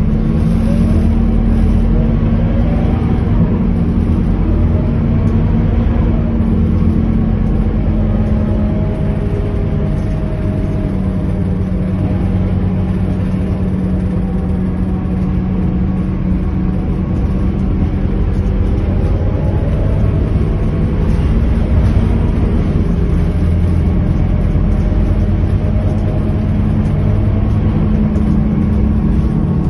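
Scania K230UB city bus heard from inside the passenger cabin, its rear-mounted five-cylinder diesel engine running steadily as the bus pulls away from a stop and drives on. A faint whine rises and falls as the bus speeds up and changes gear.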